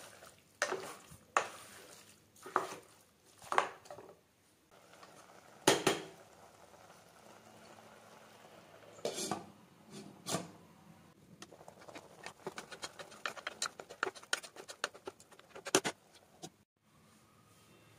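Metal cooking pot, lid and utensils clinking and knocking: single sharp knocks a second or two apart, the loudest about six seconds in, then a run of quicker, lighter clicks and one more sharp knock.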